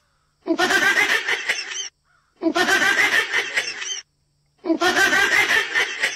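A frog screaming with its mouth wide open, three long harsh cries of about one and a half seconds each with short pauses between them: the distress scream a frog gives when it feels threatened.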